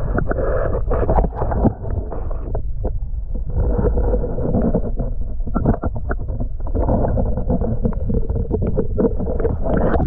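Muffled underwater sound from an action camera in its waterproof housing held in shallow water: a low rumbling wash of moving water with frequent clicks and knocks as the housing handles and brushes against the rock.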